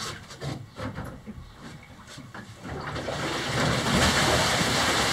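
A few light knocks and bumps, then from about three seconds in the pedal-driven paddle wheel starts churning water: a steady splashing wash that rises and holds.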